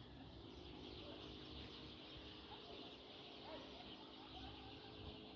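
Small birds, sparrows, chirping faintly and intermittently over a steady high hiss.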